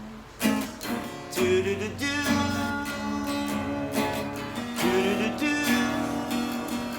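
Music led by a strummed acoustic guitar, chords struck in a steady rhythm.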